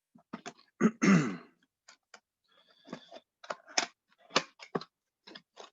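Scattered clicks and rustles of a cardboard hanger box of trading-card packs being handled, with a person clearing their throat once about a second in.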